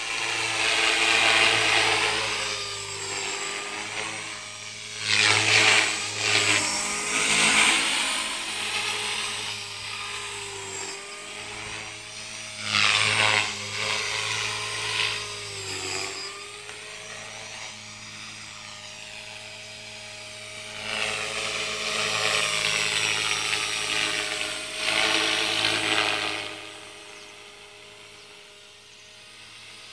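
Electric T-Rex 450 clone RC helicopter in flight: a steady motor and rotor whine that bends up and down in pitch as it manoeuvres. It swells louder several times as it comes close and fades near the end.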